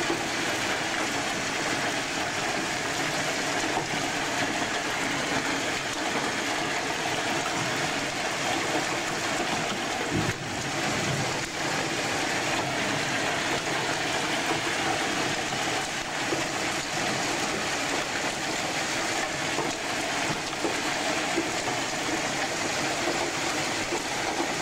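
Heavy hail and rain coming down hard, a dense steady hiss of countless stones and drops striking.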